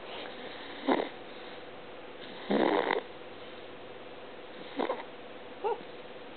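Snoring in separate breaths: a short snore about a second in, a longer, louder one at around two and a half seconds, and another near five seconds, followed by a brief wavering whistle.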